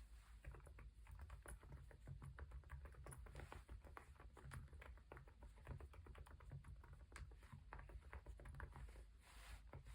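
Continuous typing on a Galaxy80 mechanical keyboard fitted with Epomaker Nude Rosa silent switches and MOA keycaps: quiet, soft keystrokes, several a second.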